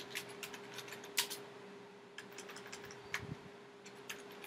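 Computer keyboard typing and mouse clicks: irregular sharp clicks in short runs with a brief pause around the middle, over a steady faint hum.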